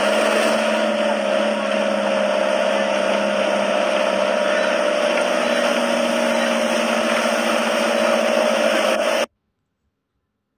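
Vehicle engine running steadily under way, with a sustained whine that sinks slightly in pitch over a dense hiss of road noise. It cuts off suddenly about nine seconds in.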